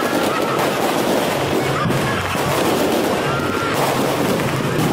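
Aerial fireworks going off in a dense, continuous barrage of rapid crackling reports, with no single big boom standing out.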